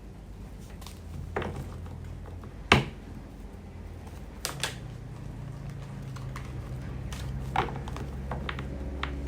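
Tarot cards handled on a table: a few scattered light clicks and taps, the sharpest a little under three seconds in, over a low steady hum.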